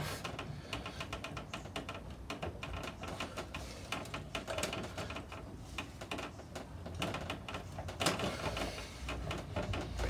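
Irregular light clicking and rattling as the front axle of an AJS Modena 125 scooter is pulled partway out and the wheel is worked loose by hand, with a few sharper knocks near the end.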